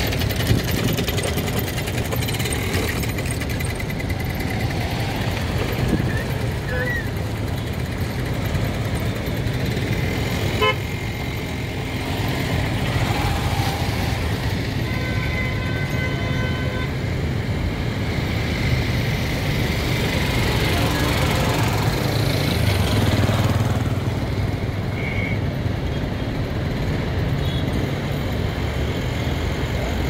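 Steady roadside traffic noise with motorcycle engines running, and a vehicle horn sounding for about two seconds halfway through.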